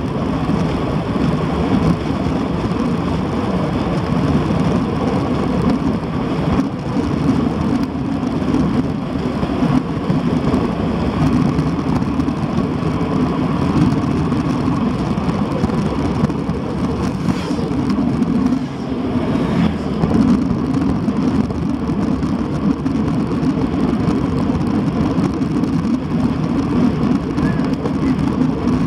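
Steady rush of wind buffeting a bicycle-mounted camera's microphone as a road bike descends at speed.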